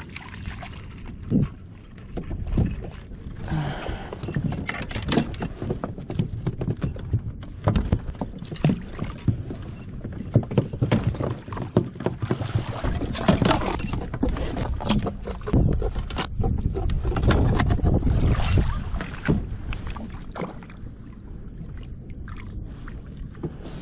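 Kayak moving on open water: irregular splashes and knocks against the hull over a low rumble.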